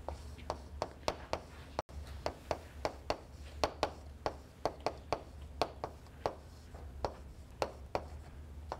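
Chalk writing on a blackboard: a quick, uneven run of sharp taps and short scrapes as symbols are written, about three a second, over a faint steady low room hum.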